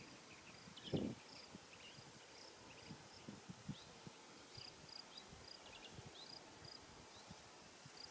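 Faint outdoor background of short, high chirps repeating every half second or so, with a few quick trills and falling chirps. A soft low thump comes about a second in.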